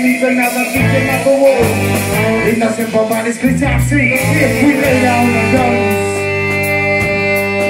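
Live band playing: singing over electric guitar, drum kit, trombone and saxophone. From about five seconds in the band settles into long held notes.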